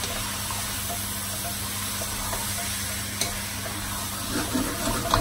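Beef and tomato stew sizzling in a pot as a wooden spoon stirs it, with soft scrapes and light knocks of the spoon against the pot. Near the end the spoon clunks a few times, louder.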